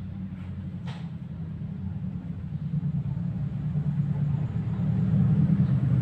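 Low, steady engine rumble of a motor vehicle, growing steadily louder; a faint click about a second in.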